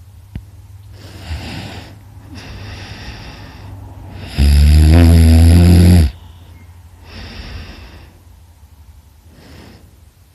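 A person snoring heavily: a run of noisy breaths, with one much louder, pitched snore lasting nearly two seconds about four seconds in.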